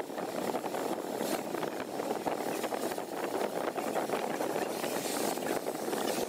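Oxy-acetylene cutting torch working on rusty plow steel: a steady rushing hiss of the flame, with a continual crackle from the hot metal and sparks.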